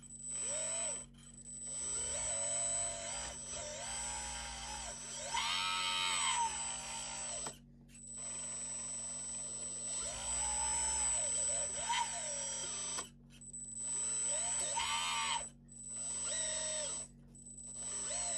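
Hydraulic pump of a 1/14-scale LXY SM870 RC skid steer loader whining in bursts as the lift arms and grapple are worked. Its pitch rises and falls with the load, and it stops in short gaps between moves. The radio mix switches the pump on with each control input.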